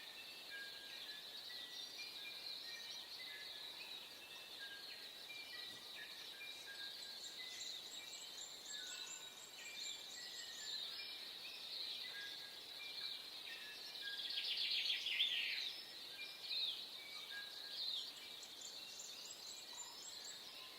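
Morning birdsong from many small birds singing at once: a continuous mix of short high chirps, whistles and trills, with a louder flurry of rapid song about two-thirds of the way through.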